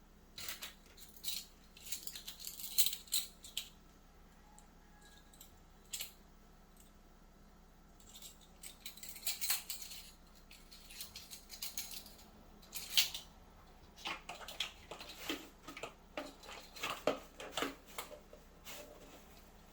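Plastic whisk beating melted butter, sugar and salt into a paste in a mixing bowl: quick, irregular scraping and clicking strokes in spurts, with a quieter pause in the middle.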